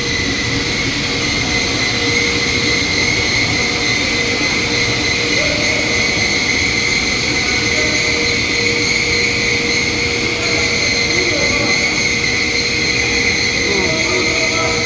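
Steady welding noise on a 16-inch duplex steel pipe: a continuous hiss with a high, even whine, unbroken throughout.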